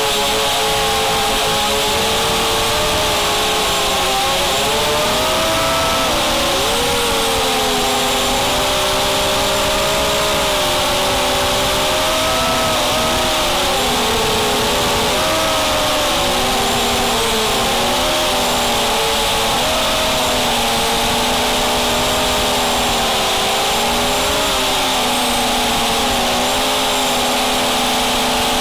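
Racing quadcopter's brushless motors and propellers whining, several tones rising and falling together as the throttle changes, over a steady rush of wind, heard from the camera on the quadcopter itself.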